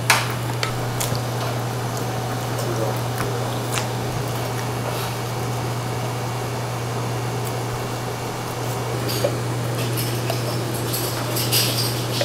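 Knife deboning a raw duck: scattered small clicks, scrapes and wet squishing as the blade works meat off the bone, with a sharp click right at the start and a cluster of ticks near the end, over a steady low hum.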